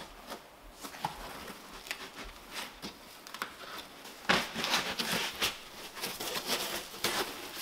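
Foam packing insert being handled and pulled out of a cardboard box: scattered light clicks and rustles, then louder scraping and rustling from about four seconds in as the foam tray is lifted out.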